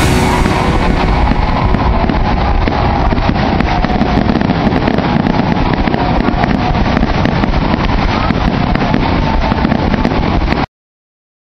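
Fireworks display going off in quick succession: a dense run of booms and crackles over a low rumble on the microphone, cutting off suddenly near the end.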